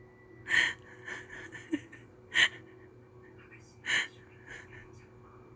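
A poodle breathing hard from the heat: loud breathy puffs every second or two, with softer ones between.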